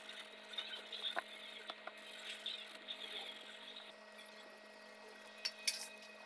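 Graphite pencil scratching on paper in short shading strokes, thinning out about halfway through, with two sharp clicks near the end. A steady low electrical hum runs underneath.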